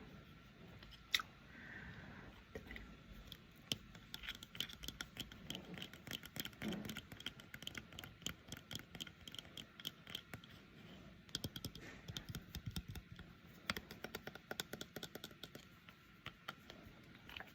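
A pair of eyeglasses handled close to the microphone: many light, quick clicks and taps on the frames, coming in fast runs with scratchy rubbing between them.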